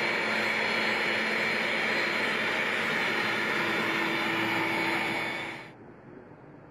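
Four turbofan jet engines of a Boeing 747-400 SuperTanker running as it taxis close by: a loud, steady rush with a few held whining tones. Near the end it cuts off abruptly to a faint, steady hiss.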